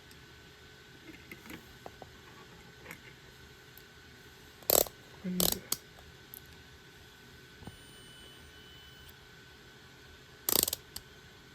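Clicks and clatter of a multimeter and its test probes being handled: a few light clicks early, two louder clacks about five seconds in, and another loud clack near the end.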